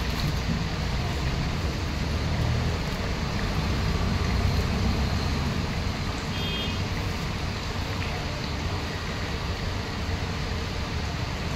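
Steady rumble of road traffic and street noise, with a brief high-pitched tone about six and a half seconds in.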